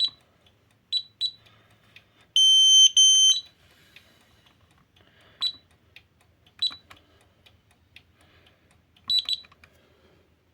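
Fire alarm control panel keypad beeping as keys are pressed to reset the alarm: a scatter of short, high beeps, with one louder, steady, longer tone in two parts about two and a half seconds in.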